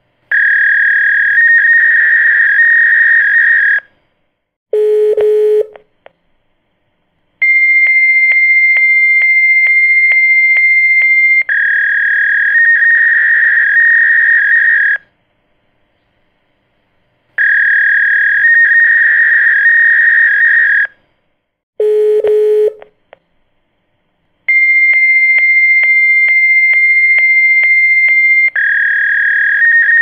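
Electronic telephone tones, high and warbling, in blocks of about four seconds broken by short silences, twice stepping between two pitches; a brief lower buzzing beep comes in twice, and the whole sequence repeats about every seventeen seconds.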